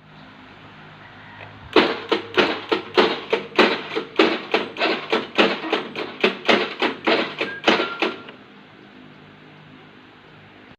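Honda Vario 110 carburettor scooter's electric starter giving only rapid clicking, about four clicks a second for some six seconds, with no sign of the engine cranking over. This is the 'cetak cetak' starting fault, in which the starter only clicks even with a new battery and new starter brushes.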